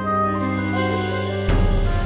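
Instrumental background music: held notes, with a deeper, louder part coming in about three quarters of the way through.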